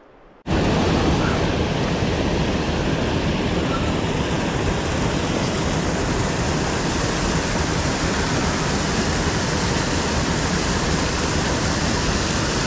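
Creek water rushing over a rocky riffle in a steady, loud rush of whitewater that starts abruptly about half a second in.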